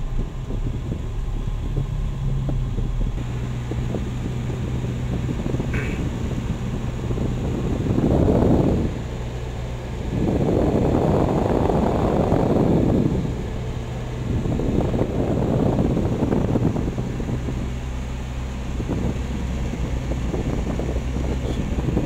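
Toyota Kijang 5K four-cylinder engine idling with a steady hum while the newly fitted AC blower fan runs. Air buffets the microphone in three rumbling gusts, the longest from about ten to thirteen seconds in.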